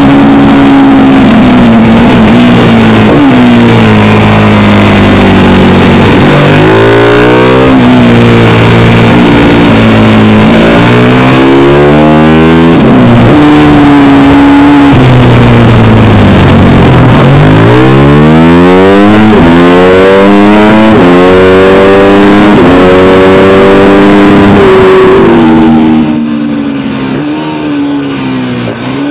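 Motorcycle engine heard on board at racing speed, its pitch climbing repeatedly as it accelerates and dropping at each gear change, over a heavy rush of wind noise. About 26 seconds in it gets noticeably quieter and the wind rush fades as the bike slows for a corner.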